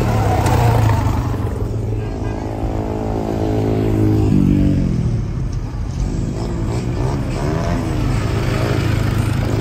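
A car engine running close by, held at raised revs for a few seconds before dropping back near the middle, over a steady low hum.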